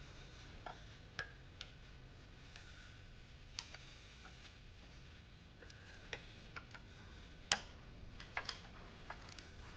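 Faint, irregular light metallic clicks and taps, about a dozen, of circlip pliers and hand tools working at the circlip on top of a Ford Transit's lower wishbone ball joint; the sharpest click comes about three-quarters of the way through.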